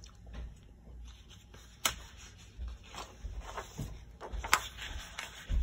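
Quiet handling noises with scattered faint rustles and two sharp clicks, about two seconds and four and a half seconds in, over a low hum.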